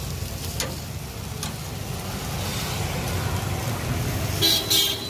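Chicken pieces sizzling on a charcoal grill while metal tongs click against the grate, over a steady low rumble of road traffic. Two short, sharper sounds come near the end.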